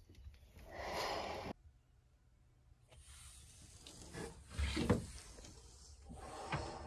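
A flat wooden stick scraping and spreading thickened epoxy across a fiberglass surface for about a second, cut off abruptly. After a pause come several seconds of rustling handling noise with a few dull knocks.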